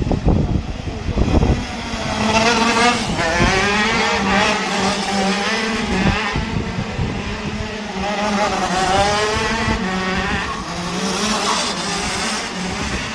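Racing go-kart engines revving, their pitch rising and falling again and again as they run through the turns. A low, muffled rumble on the microphone fills the first second or so.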